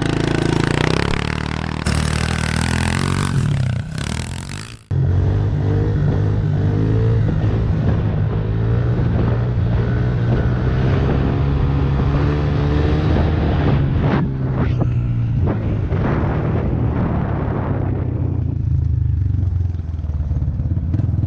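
Pit bike engine running as the rider sets off, with loud rushing noise over it for the first five seconds. After a sudden cut, the bike runs steadily on under background music.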